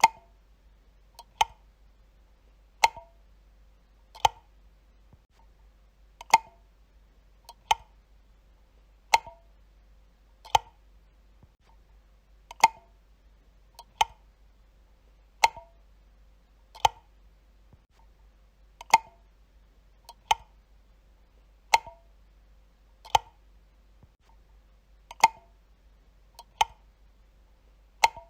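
Light switch being flipped, single sharp clicks about every second and a half, coming in runs of four with a slightly longer pause between runs.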